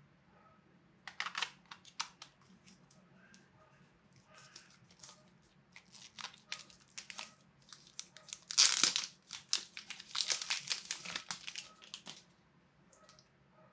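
Plastic packaging wrapper crinkling and rustling as a pole accessory is unwrapped by hand, in irregular bursts that are loudest in the second half and stop shortly before the end.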